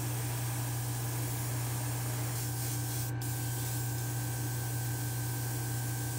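Gravity-feed airbrush hissing as it sprays red paint onto a small model part, the hiss growing stronger a couple of seconds in, over a steady low mechanical hum.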